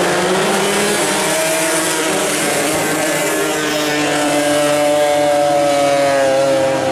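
Two-stroke Suzuki Sport 120 race motorcycle engines revving and held at high revs while the bikes wait to start, several engine pitches overlapping; the main pitch sags slightly toward the end.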